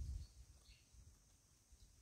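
Near silence: faint outdoor ambience. A low rumble dies away at the very start, and a faint short high chirp comes a little under a second in.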